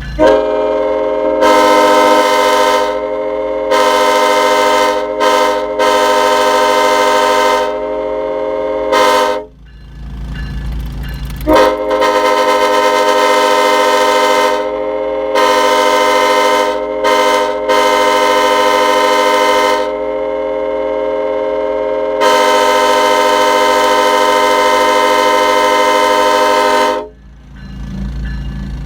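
Multi-chime locomotive air horn on a truck, sounding a loud steady chord in long blasts broken by short gaps. The blasts run for about nine seconds, pause for about two, then run again for about fifteen.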